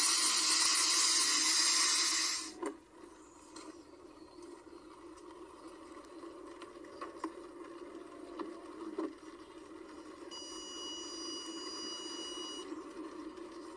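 Loud rushing noise of hurricane wind and rain that cuts off suddenly about two and a half seconds in, leaving a low steady hum with a few faint clicks. Near the end a high steady electronic beep sounds for about two seconds.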